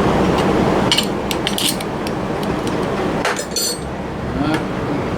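Small hard objects clinking and rattling in several short bursts as things are handled, over a steady background hum.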